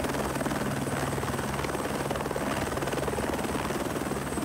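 Light helicopter running on the ground with its main rotor turning: a steady fast rotor beat with an even engine hum.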